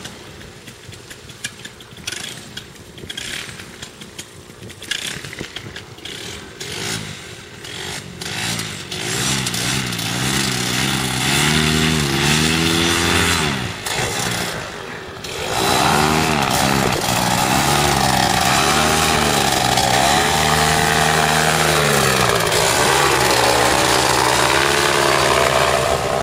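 Paramotor engine and propeller. After several seconds of gusty noise, the engine is revved up and down in surges. About halfway through it goes to a louder, steady full-power drone with a slightly wavering pitch, for the takeoff run and climb.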